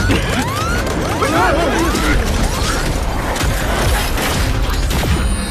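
Sci-fi mechanical sound effects of powered armour and weapons: a run of quick whirring sweeps that rise and fall in pitch in the first couple of seconds, then clicking and clanking, over a steady low rumble.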